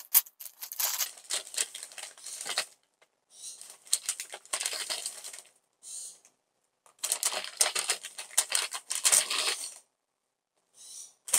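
Paper takeaway bag rustling and crinkling in repeated bursts as its sealed top is pulled open and the bowls are lifted out.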